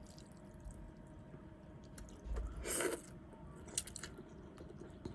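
Soft chewing and wet mouth sounds of someone eating noodle soup, with scattered small clicks and a short louder wet sound about halfway through.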